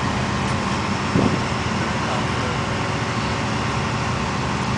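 Vehicle engine running at a steady idle, with a brief thump about a second in.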